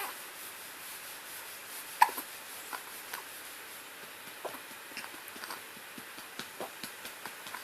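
A baby hiccuping: short, sharp hiccups a second or so apart, the loudest about two seconds in.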